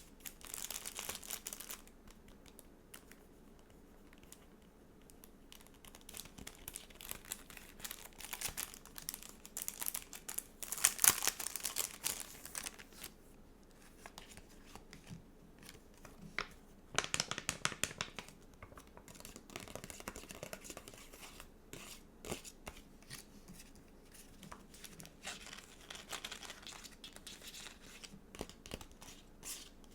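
Stickers and sticker sheets being handled close to the microphone: irregular crinkling and peeling-like tearing, in bursts, loudest about ten to thirteen seconds in and again around seventeen seconds.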